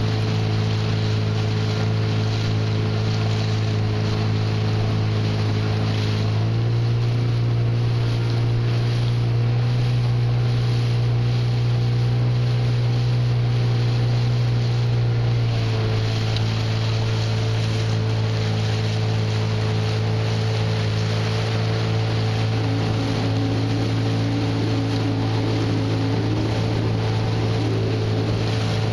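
Motorboat engine running with a steady hum, its pitch stepping up a little about six seconds in and dropping back about fifteen seconds in as the engine speed changes, over water wash.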